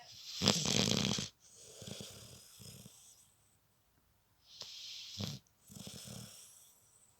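Snoring in slow breaths: a loud fluttering snore about a second long near the start, then a softer breath. After a short pause comes another snore and breath past the middle.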